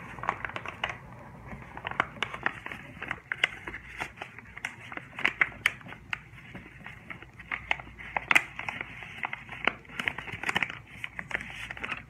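Origami paper being folded and creased by hand: crinkling and rustling, with many sharp, irregular crackles and taps as the folds are pressed down.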